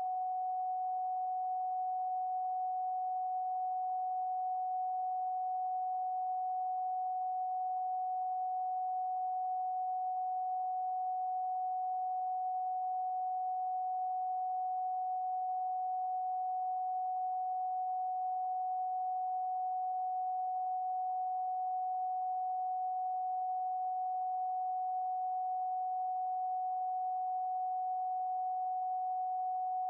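Steady electronic sine tone held at one pitch without any change, with a fainter, very high steady tone sounding above it.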